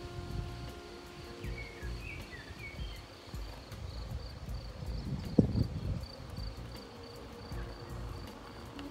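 Insect trilling: a thin, high, evenly pulsing tone throughout. A few short bird chirps come about two seconds in, over a low rumble with one sharp thump about five and a half seconds in.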